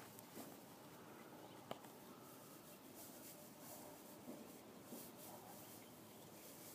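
Near silence: faint outdoor background with a few soft ticks, the sharpest about a second and a half in.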